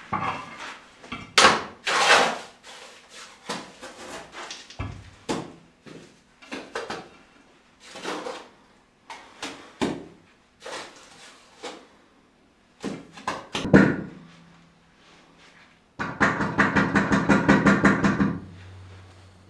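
Flagstones being laid in mortar: irregular knocks, clacks and scrapes of stone on stone and on the floor. Near the end comes a fast even run of taps, about seven a second, for a couple of seconds.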